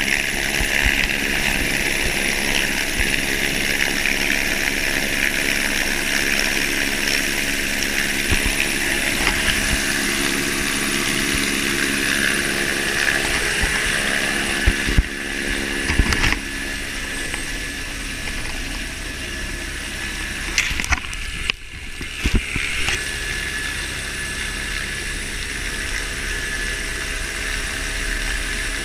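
Turbine helicopter running on the ground with its rotor turning, a steady engine-and-rotor noise with a high turbine whine. A few knocks and clunks come about halfway through, and after them the sound is lower and more muffled, heard from inside the cabin.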